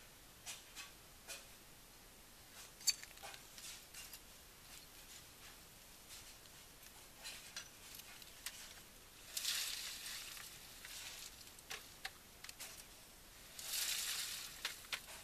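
Wet concrete sliding and splattering out of a plastic bucket into formwork over a rebar cage, two rushes of it, the louder near the end as the bucket is tipped over. Scattered small clicks and knocks of handling between them.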